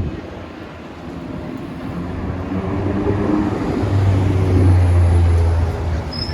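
A motor vehicle passing close by on the street, its engine's low hum building to loudest about four to five seconds in and then fading away.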